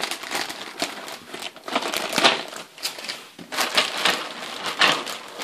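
Clear plastic parts bags crinkling and rustling in irregular bursts as hands open and handle them.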